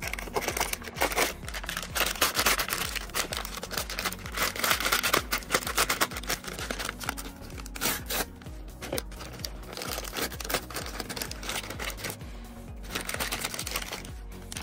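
Printed plastic blind-bag packet being crinkled and torn open by hand: a dense crackling rustle in two long stretches with a lull about halfway, over background music.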